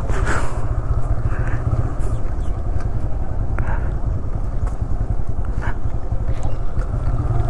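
Motorcycle being ridden at speed: a steady rumble of engine and wind buffeting the microphone, with a few faint brief sounds on top.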